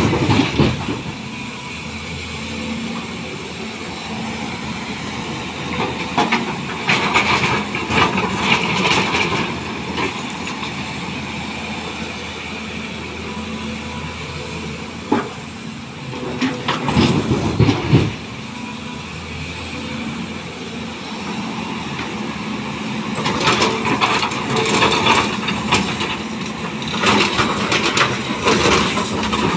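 Volvo tracked hydraulic excavator's diesel engine running steadily, with several bursts of broken stone clattering and scraping as the bucket digs rock and dumps it into a steel tipper body.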